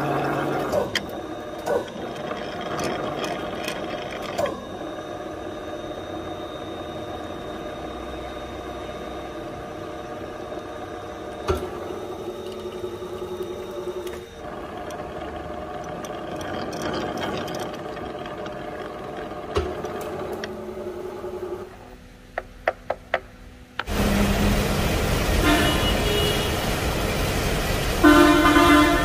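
Drilling machine spindle running as a machine tap cuts threads into a steel block, a steady mechanical hum with several steady tones whose sound shifts a few times. Near the end a few sharp clicks, then a much louder steady machine noise from the lathe takes over.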